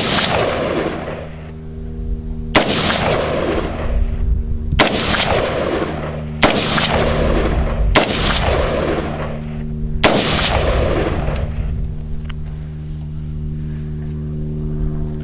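Five single shots from a home-built AR-15 pistol with a 10-1/4 inch barrel, fired about every two seconds. Each shot is followed by an echo about a second long.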